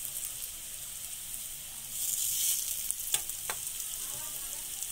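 Rice-flour-coated raw banana slices sizzling in a thin layer of oil on a flat tawa over a low flame. A steady sizzle, with two sharp pops of spitting oil a little past halfway.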